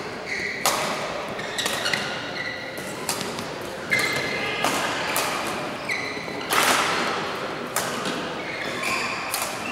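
Badminton rally: rackets striking the shuttlecock in sharp cracks about once a second, with short squeaks of court shoes on the floor between hits, echoing in a large hall.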